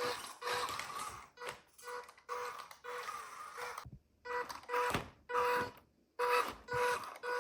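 Repeated short electronic beeps, about two a second, over bursts of hissing noise, with two brief drop-outs about four and six seconds in.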